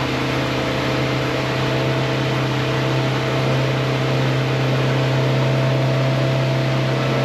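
Suzuki 150 four-stroke outboard running steadily under throttle at around 3,600 to 4,000 RPM as the boat climbs onto plane: a loud, even engine drone with a low hum and a steady hiss of hull and water noise under it.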